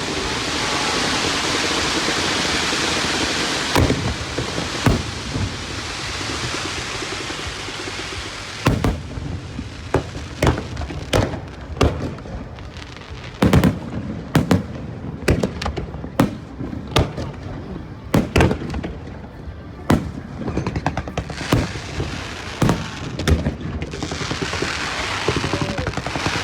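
Aerial fireworks: a dense crackling hiss from crackle shells for the first several seconds, then a long run of sharp bangs from bursting shells, coming irregularly and at times several a second.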